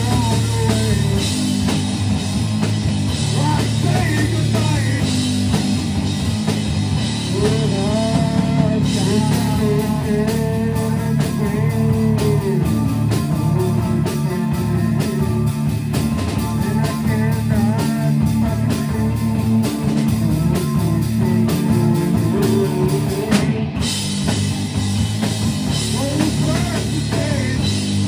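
Live rock band playing a song at full volume: distorted electric guitars, bass guitar and a Tama drum kit, with a pitched lead line, most likely the singer's voice, weaving over them for much of the time.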